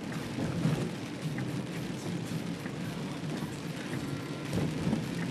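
Steady rushing noise of wind and rain in a hurricane rain squall.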